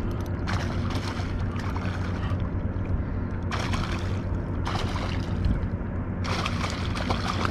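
A steady low mechanical hum, like a distant motor, runs throughout. Four short bursts of hissing noise, each about half a second to a second long, are laid over it.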